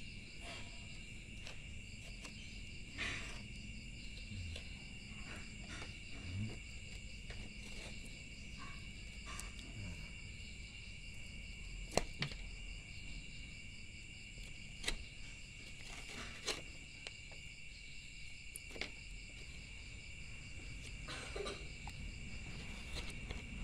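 Steady high chirping of crickets runs on throughout. Over it come scattered soft scrapes and clicks of young coconut flesh being scraped out of its shell, with one sharper click about halfway through.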